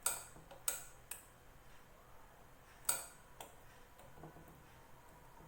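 Sharp clacks from a plastic bag heat sealer's press arm being pushed down and let back up: three clicks in the first second, then two more about three seconds in.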